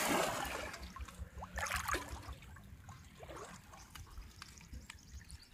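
Pond water splashing as a person wades through it, loudest at the start and dying away within about a second, followed by a few faint trickles and drips.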